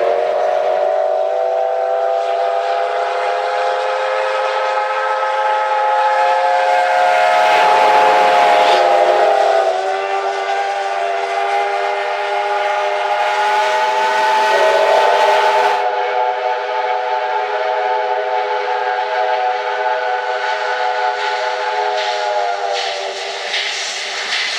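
Steam locomotive whistle sounding one very long, sustained blast, a chord of several steady tones over a hiss of escaping steam. The tones shift slightly about ten seconds in and ease off near the end.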